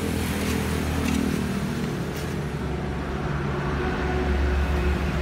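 A steady, low mechanical drone of a motor running.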